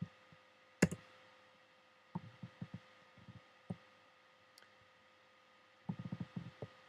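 Faint clicks and soft knocks of a computer keyboard and mouse being worked, over a steady electrical hum. One sharper click comes about a second in, and two quick runs of low knocks follow later.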